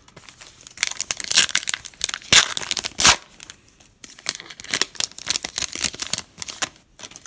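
Plastic wrapper of a 2017 Donruss Optic football card pack being torn open and crinkled by hand. There are sharp ripping crackles in the first three seconds, the loudest near the end of that stretch, then after a short pause more lighter crinkling as the torn wrapper is peeled back.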